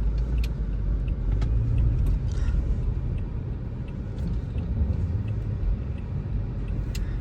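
Low, steady rumble of a car driving, heard from inside the cabin, with a few faint light clicks.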